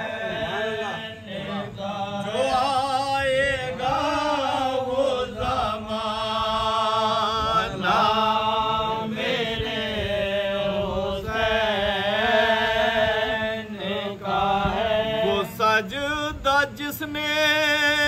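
Male voices chanting a soz, a Muharram lament in Urdu, with a lead reciter and accompanying voices. They hold long, wavering notes and slide between pitches.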